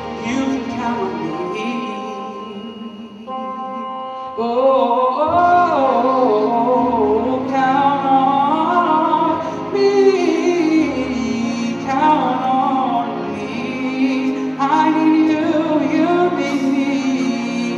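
A man sings through a microphone over an instrumental backing track, drawing out notes in wordless runs that rise and fall. About four and a half seconds in, the music swells louder.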